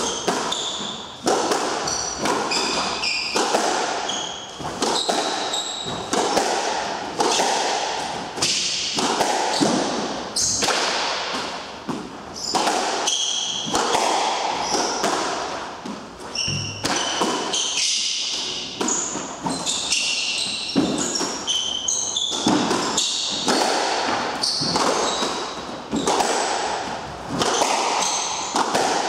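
Squash rally: the ball cracking off rackets and the court walls every second or so, with sneakers squeaking sharply on the wooden floor between shots.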